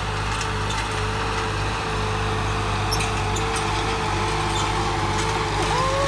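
Swaraj 969 tractor's three-cylinder diesel engine running steadily under load as it pulls a disc harrow through tilled soil.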